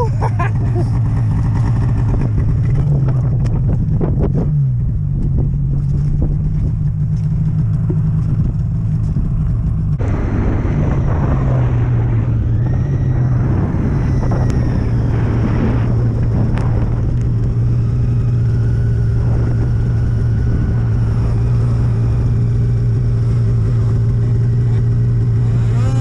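Snowmobile engine running steadily at an even pitch while the sled travels through deep powder snow. About ten seconds in, a rushing noise of wind and snow grows louder over the engine.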